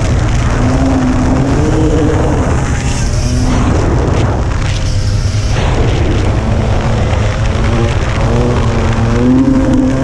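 Dirt bike engine running at speed, its pitch rising and falling with the throttle, over heavy wind rush on a helmet-mounted microphone. The engine note drops back under the wind for a few seconds in the middle, then picks up again.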